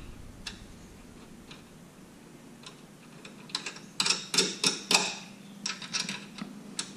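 Light metallic clicks and ticks of coilover top-mount nuts being threaded by hand onto the strut-tower studs. There are a few sparse clicks at first, then a quick run of clicks about three and a half seconds in.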